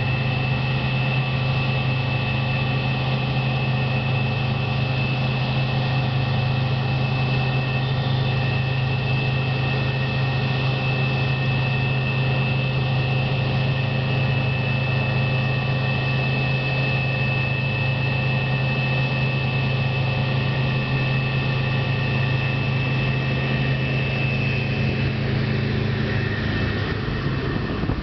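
Combine harvester running steadily under load: a deep, even engine drone with a steady high whine above it, which fades out near the end.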